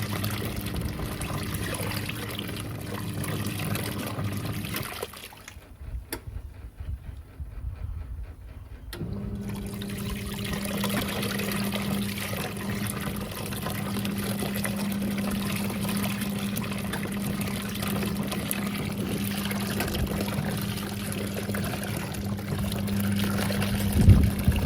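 National NA9450PN pulsator washing machine taking in water for its rinse, water pouring into the tub with a steady low hum. About five seconds in the flow and hum stop, with a click, and resume about four seconds later. A short thump comes near the end.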